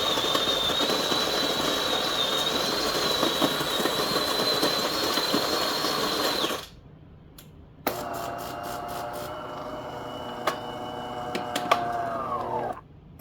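A De'Longhi bean-to-cup coffee machine at work. Its built-in grinder runs for about six and a half seconds with a steady high whine. After a short pause, a motor runs with an even hum and two sharp clicks, then winds down, falling in pitch as it stops.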